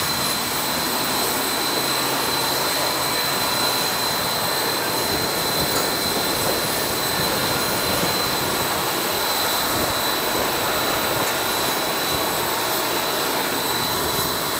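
Airbus A320's jet turbine running steadily while the aircraft stands at the gate: an even rushing noise with a thin, unchanging high whine.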